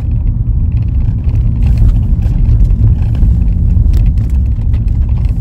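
Steady low rumble inside the cabin of a Kia K3 compact car as it drives, the engine and tyre noise carrying mostly deep tones.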